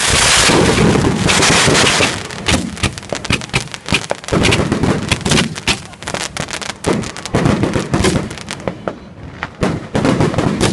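Fireworks crackling: a dense, loud spray of pops for the first couple of seconds, then rapid sharp cracks that gradually thin out and grow fainter.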